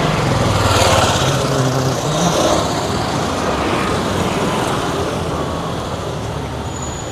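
Road traffic: a motor vehicle's engine runs close by, loudest about a second in, over steady traffic noise that eases a little towards the end.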